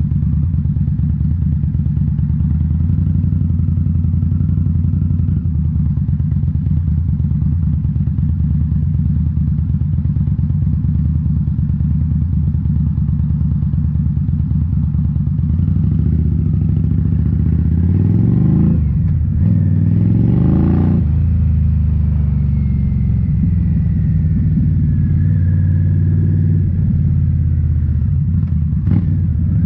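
2018 Indian Scout Bobber's V-twin through Rinehart slip-on mufflers, running steadily under way, then revving up twice about two-thirds of the way in, each rise cut off by a gear change.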